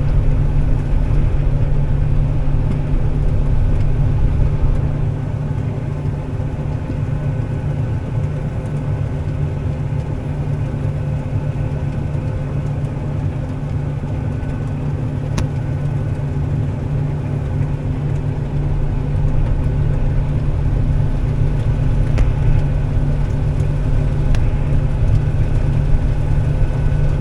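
Loaded grain truck's engine running steadily under way, heard from inside the cab with road noise. It eases off for a while and picks up again after about 18 seconds.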